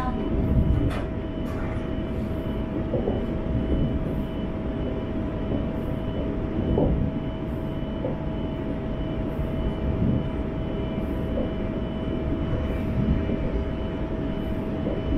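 Electric multiple-unit train running along the line: a steady rumble with a steady whine over it.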